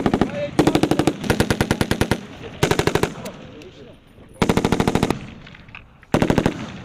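Belt-fed machine gun firing short bursts of automatic fire, about five in all, each a second or less long, with the rattle of shots dying away between bursts.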